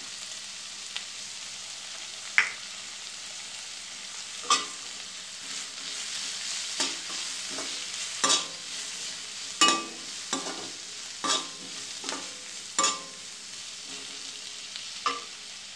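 Onions, capsicum and garlic sizzling in hot oil in a metal kadai, with a perforated spatula scraping and knocking against the pan about ten times as they are stir-fried.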